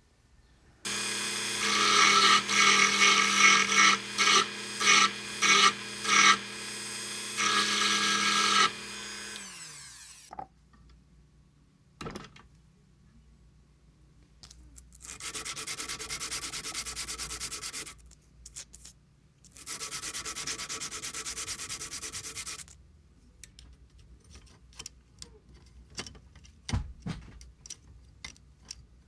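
A power tool's motor running with a steady hum and rapid bursts of louder grinding as it cleans rust off bicycle derailleur bolts, then switched off and winding down about ten seconds in. Later come two stretches of scrubbing, about three seconds each, and a few small clicks of parts being handled.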